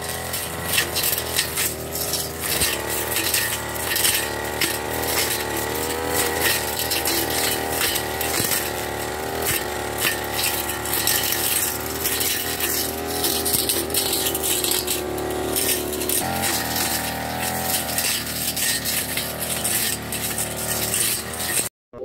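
Backpack brush cutter running, its engine pitch shifting now and then with the throttle, with rapid rattling and clicking as the cutting head strikes grass and debris.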